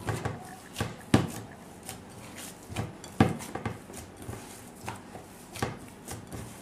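Hands kneading and squeezing raw chicken mince with breadcrumbs in a bowl: irregular wet slaps and squelches, about a dozen, the loudest about a second in and again about three seconds in.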